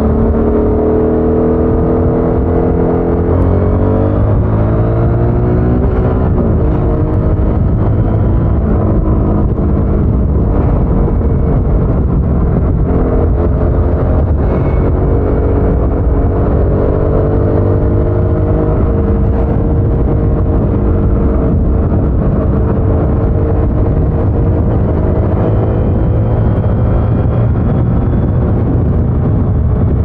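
Harley-Davidson Sportster S's Revolution Max 1250 V-twin on its stock exhaust, running under way. Its note shifts in pitch a few seconds in, then holds a fairly steady drone.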